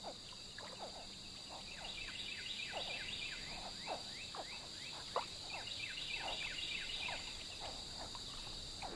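Swamp chorus: a steady, high insect trilling throughout, with frogs calling over it. There are two runs of short falling chirps, a few a second, and scattered lower calls in between.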